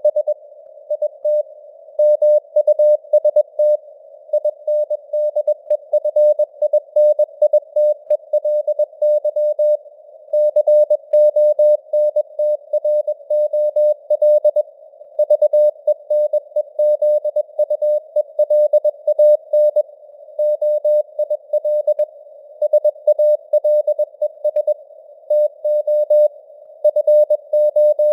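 Morse code (CW) at 21 words per minute: a single mid-pitched beep keyed on and off in dots and dashes with letter and word gaps, over a narrow band of hiss imitating receiver noise, the signal strength varying slightly as simulated fading (QSB).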